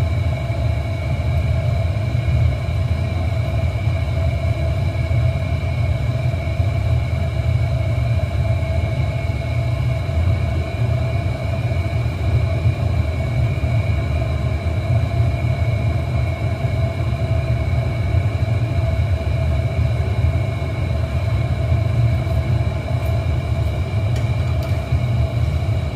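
Steady low rumble of a glass furnace's burners and blowers, with a constant whine of several steady tones above it. A few light clicks come near the end.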